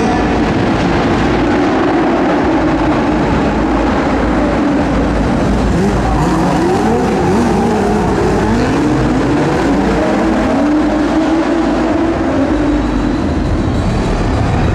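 Several race car engines running hard together. From about six seconds in there is a series of rising pitch sweeps as the cars accelerate.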